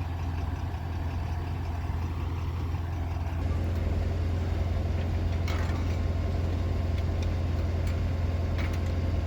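Tractor engine running steadily at a low idle-like hum, getting a little louder about three and a half seconds in, with a couple of faint clicks from the machinery.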